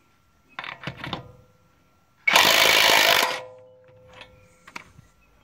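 Brushless cordless 1/2-inch impact wrench hammering for about a second, loosening a wheel lug nut. A few short clicks and rattles come before it, and a fading ring follows it.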